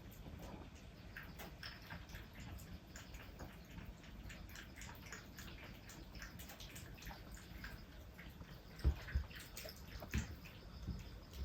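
Kittens eating wet food: quick, irregular wet clicks of chewing and lapping, with a few low thumps near the end.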